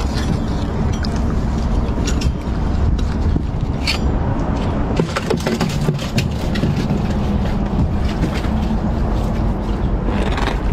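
Steady low rumble with water movement, broken by a few sharp knocks and splashes, about four and five seconds in, as a sucker fish is speared and landed in a small boat.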